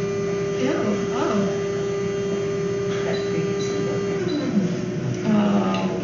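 A steady machine hum that winds down and stops about four seconds in, with faint voices.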